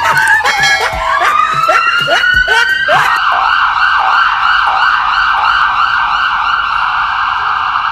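Police siren in a slow wail, falling and then rising in pitch, switching about three seconds in to a fast yelp that warbles up and down several times a second.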